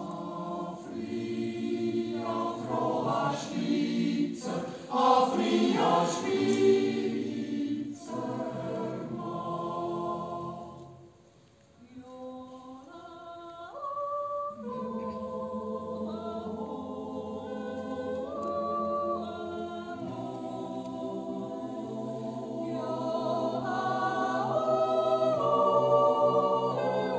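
Mixed yodel choir of men's and women's voices singing a cappella in held chords. The singing breaks off briefly about eleven seconds in, then resumes and swells louder toward the end.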